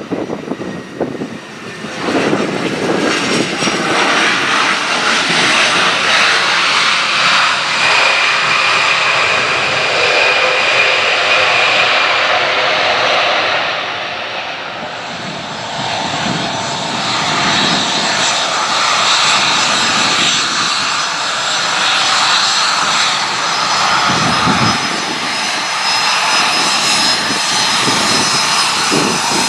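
Endeavor Air regional jet's twin jet engines on arrival, a loud steady rush with a high whine, easing about halfway through as the jet moves into its taxi and then running on steadily.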